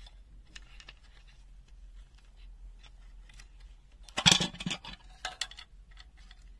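Light clicks and small plastic rattling as a small resistor circuit board is handled inside an open plastic multimeter case, with a louder burst of clatter about four seconds in.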